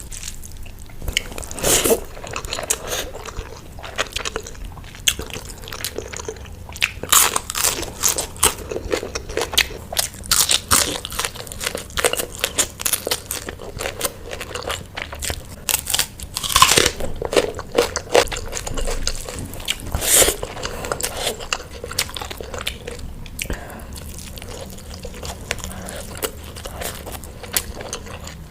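A person eating fish, biting and chewing with irregular crunching crackles, the loudest bites a few seconds apart.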